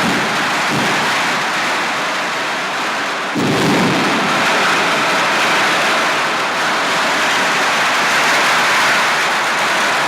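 A long string of firecrackers going off in a continuous dense crackle, growing louder with a deeper burst about three and a half seconds in.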